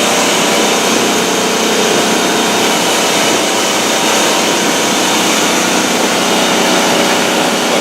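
Boat motor running steadily under way, with a constant rushing noise.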